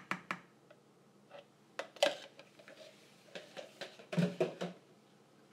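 Scattered knocks and light clatter of a plastic jug and a stick blender being handled and set down on a countertop, with a louder knock about two seconds in and a quick cluster of knocks around four seconds.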